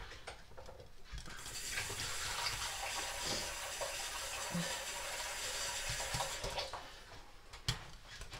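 Kitchen tap running for about five seconds, filling a container with water, then cutting off. A few light clicks of a wire whisk against a glass bowl follow near the end.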